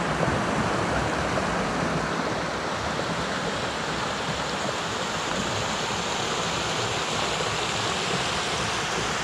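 Small woodland stream running over rocky riffles: a steady, even rush of water.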